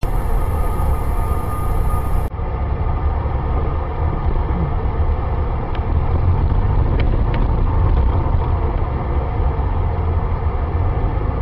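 Steady low rumble of a car driving in city traffic, heard through a dashboard camera's microphone inside the cabin: engine and road noise, with a few faint clicks in the middle.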